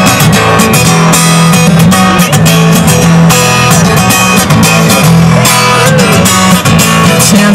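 Solo acoustic guitar strummed in a steady, driving rhythm, played live through a stage PA in an instrumental passage between sung lines.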